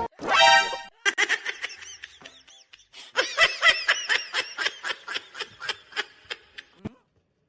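A short, loud, high-pitched cry, then a person laughing in a long run of short bursts, about three a second, that tail off and stop near the end.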